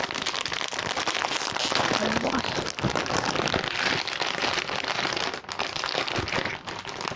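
Plastic snack packaging crinkling and rustling as it is handled: first a small wrapper, then a large plastic bag of Pocky picked up and turned in the hands, with dense crackly rustling throughout.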